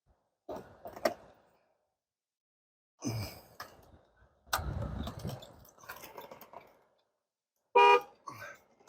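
Clunks and rustling of a loosened steering wheel being handled, then near the end a short, loud blast of the Chevrolet HHR's horn, set off by handling the wheel during the repair.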